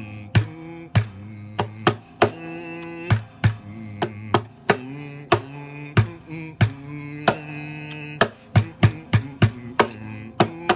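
Jaw harp (mouth harp) plucked in a quick, uneven rhythm: sharp twangs over a low buzzing drone whose overtones shift as the mouth changes shape.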